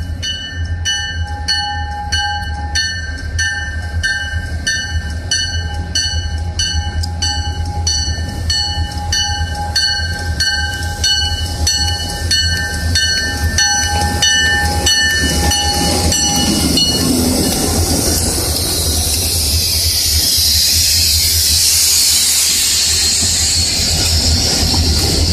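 Canadian Pacific diesel freight locomotives approach and pass close by, their engines giving a steady low rumble. A bell rings about twice a second and stops about two-thirds of the way through. The noise then swells into a loud rush of engine and wheel sound as the locomotives go by alongside.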